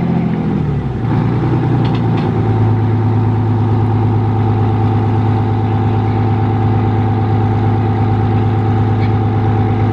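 Straight-piped Detroit Diesel two-stroke V6 of a Pirsch fire engine running. About a second in, its speed drops and then holds at a steady lower note.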